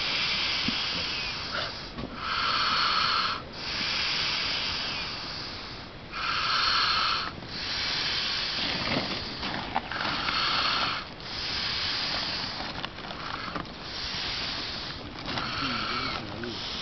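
A man snoring loudly in his sleep: a hissing breath that swells and fades over and over, about once every four seconds.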